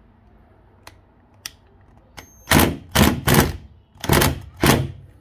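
Ryobi 18-volt impact driver hammering in five short trigger bursts from about halfway in, turning a riv nut tool to draw an M6 rivet nut up tight in the car's roof sheet metal. There are two faint clicks before the first burst.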